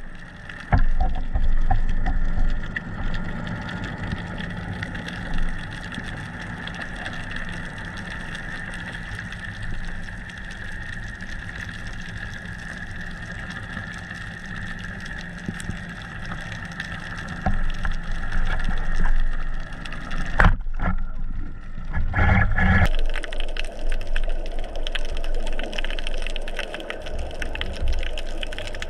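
Underwater sound through an action camera's housing: a steady water hiss with a constant low drone and a higher steady whine. After a short break near the end, louder water sloshing and a few bumps close to the surface.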